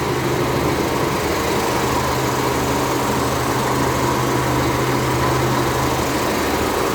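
Diesel engine of a K-700 tractor, repowered with a freshly overhauled MAN engine, running steadily at an even speed.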